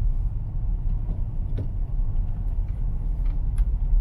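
Hyundai Veloster heard from inside the cabin while driving: a steady low rumble of engine and road noise, with a few faint clicks.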